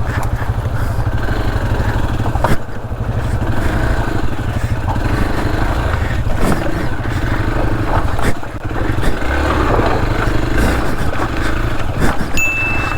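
Motorcycle engine running steadily as the bike is ridden, with a few sharp knocks along the way.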